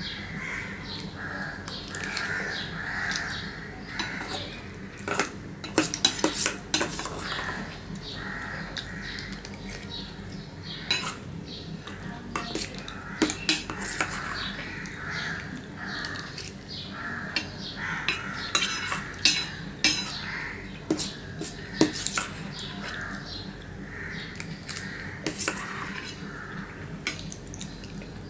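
Steel spoon scraping and clinking against a small stainless-steel bowl as the last of the food is scooped out, in many irregular sharp clinks, with close-miked eating sounds in between.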